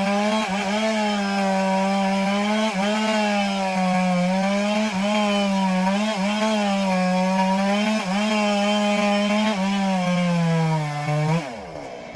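Stihl two-stroke chainsaw held at full throttle, cutting through a large log, its pitch wavering slightly as the load changes. Near the end the throttle is let off and the engine pitch falls, then it is blipped up once more.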